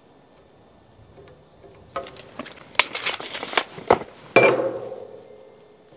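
Steel tape measure retracting with a rattle and a few sharp clicks as it snaps shut, then a steel framing square clanks and rings briefly, dying away over about a second.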